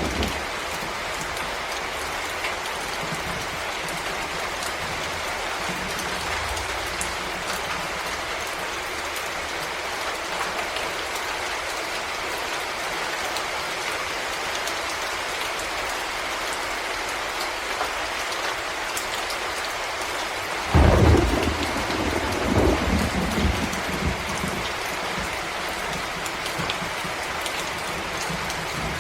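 Steady rain falling in a forest, an even hiss throughout. About two-thirds of the way through comes a short, loud low rumble lasting a few seconds.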